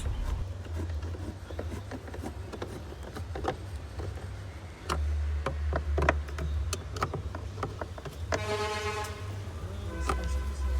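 Scattered clicks and light knocks of screws and bolts being tightened while a car's dashboard is refitted, over a steady low hum. About eight seconds in, a short pitched tone sounds for under a second.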